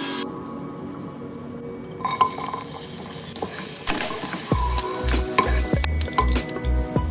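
Food sizzling in a pan while being stirred, the utensil clicking against the pan, starting about two seconds in. Background music plays underneath, with a low beat coming in about halfway through.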